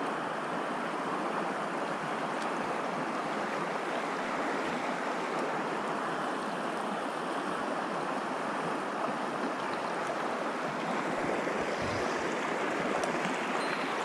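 Shallow mountain stream running over a cobble and gravel bed: a steady rushing of water through the riffles.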